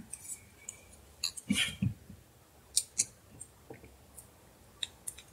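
Irregular light clicks and short scrapes of a small screwdriver prying at an LG V20 phone's microphone and its thin wires inside the plastic frame.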